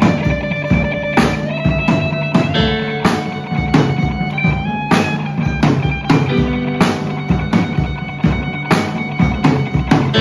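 Live rock band playing an instrumental passage: guitar chords held over a steady drum beat, with no vocals.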